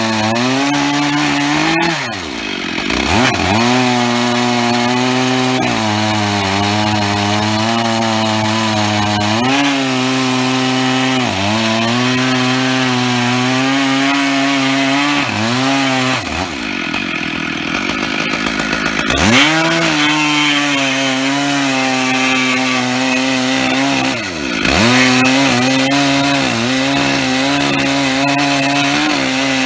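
Stihl 880 two-stroke chainsaw with a 105 cm bar, mounted in a chainsaw mill and running at full throttle while ripping a lengthwise cut through an oak log. Its engine note sags and recovers three times: near the start, around the middle, and about three-quarters of the way in.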